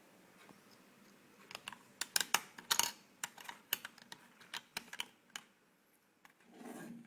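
Small plastic buttons on an LED projection alarm clock clicking as they are pressed: about fifteen sharp clicks in quick, irregular succession. A brief soft rustle follows near the end.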